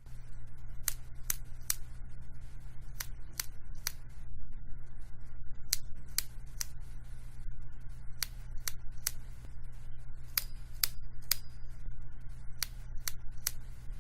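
Single keys on an Mstone Groove mechanical keyboard with silent red switches pressed and released for their spring sound: sharp clicks in groups of three, a group about every two and a half seconds, over a steady low hum.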